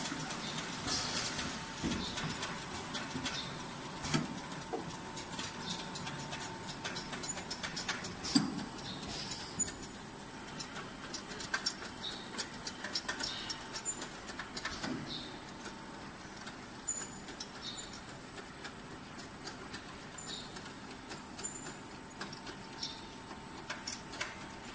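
Automatic piston filling and screw-capping machine for 5 L oil bottles running, with irregular clicks and clattering knocks from its moving parts over a steady faint high whine.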